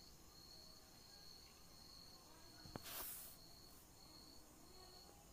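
Near silence: faint room tone with a thin, high, steady tone that breaks off now and then. A soft click and a brief hiss come about three seconds in.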